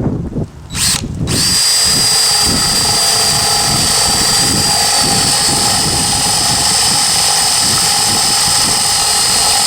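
Cordless drill on its drill setting at high speed, boring into wood: a short blip about a second in, then the motor runs steadily at full speed with a high, even whine.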